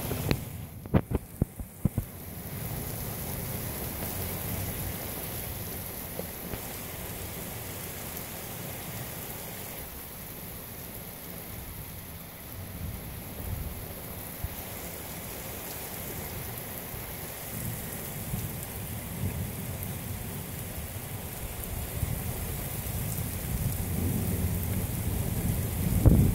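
Steady rain falling, with a few sharp knocks in the first two seconds and a low rumble building near the end.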